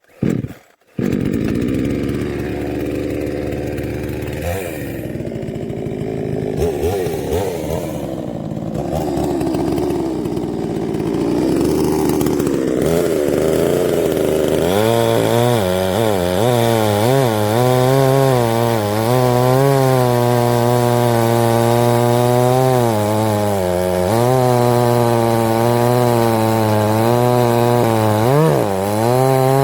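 GreenCut GS750X 75cc two-stroke petrol chainsaw running and cutting wood, its engine note rising and falling under load. About halfway through, the engine note becomes clearer and stronger, still wavering up and down.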